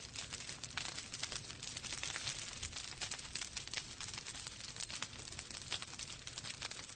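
Fire crackling in a fireplace: a continuous stream of small pops and snaps over a soft hiss.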